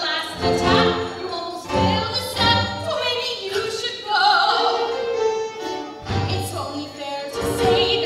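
A musical-theatre song performed live: a woman sings with instrumental accompaniment.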